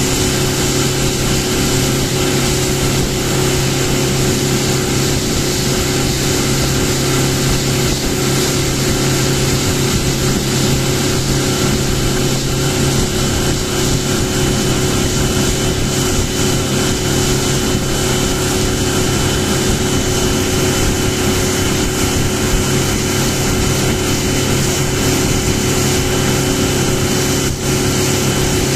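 Boat engine running at a steady cruising speed with an unchanging hum, over a steady hiss of water and wind.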